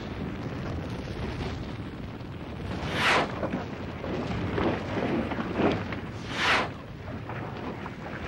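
Animated-film sound effects of a heavy, continuous rumble of destruction, with two loud blasts about three and a half seconds apart.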